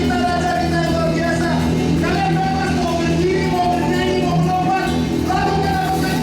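Live gospel band playing a hymn arrangement with a steady groove, with singing in long held notes over a steady bass line.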